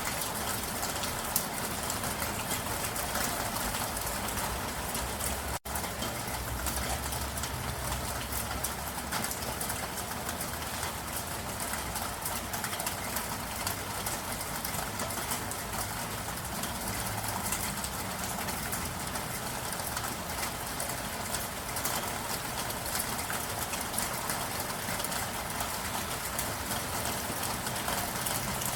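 Steady rain falling, a dense even patter of drops. It cuts out for an instant about five and a half seconds in.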